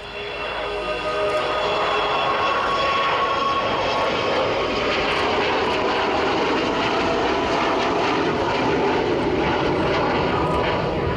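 The four Rolls-Royce Olympus turbojets of the Avro Vulcan XH558 delta-wing bomber in a display pass. The engine noise builds over the first couple of seconds, then holds as a steady, loud roar with whining tones running through it.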